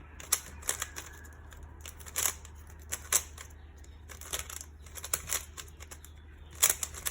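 Cubelelo Drift 3M 3x3 plastic speedcube being turned fast in a speed solve: quick, irregular clicks and clacks of the layers snapping round, a few each second.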